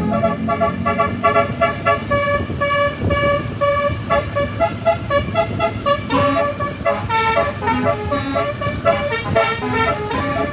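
A bus's telolet basuri musical air horn plays a fast melody of short notes that change pitch in quick succession, over the rumble of the running bus.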